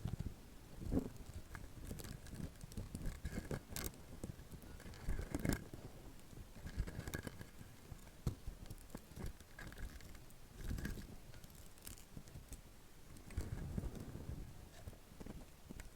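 Soft silicone textures handled close to the microphone: irregular soft taps, rubs and scratches, with a few brief faint squeaks.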